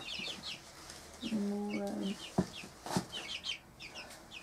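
Four-week-old Cuckoo Marans chicks peeping, a rapid run of short high chirps, with a brief low steady call from the mother hen about a second and a half in and a couple of sharp taps.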